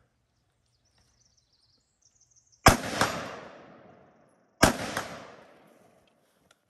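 Two rifle shots about two seconds apart, each a sharp crack followed by a fainter second crack about a third of a second later and a long echo rolling away over the range.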